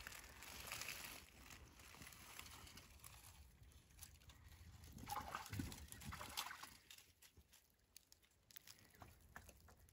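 Near silence: faint outdoor background, with a brief soft patch of faint sound about five to six seconds in.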